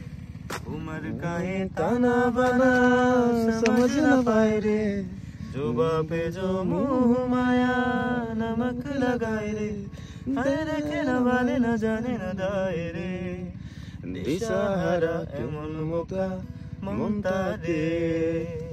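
A man singing long, drawn-out notes to a strummed acoustic guitar, in phrases of a few seconds with short breaks between them.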